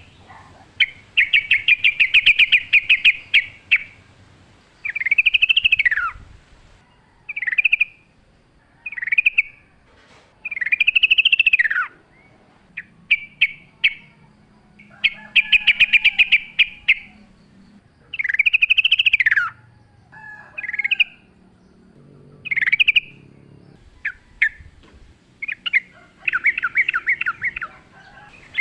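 Yellow-vented bulbul (trucuk) singing: a series of short song phrases with brief pauses between them, some fast runs of rapidly repeated notes, others notes that arch up and sweep downward.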